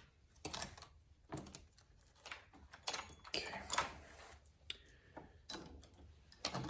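Irregular metallic clicks, clinks and knocks of a chainsaw's bar, chain and cover being handled and taken off by hand.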